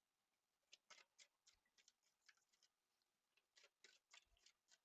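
Near silence, with faint, irregular light clicks scattered throughout, a dozen or so spread unevenly.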